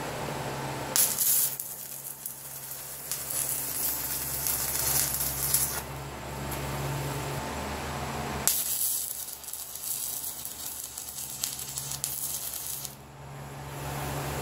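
Arc welding a steel pipe pin sleeve into a tractor grader blade's frame: two runs of crackling arc hiss, each about five seconds, starting about a second in and again about eight seconds in. A steady low hum lies underneath.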